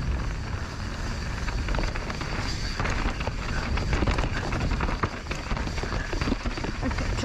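Mountain bike descending a dirt trail: wind buffeting the helmet or chest camera's microphone, with tyres on dirt and rocks and the bike clattering in many short knocks.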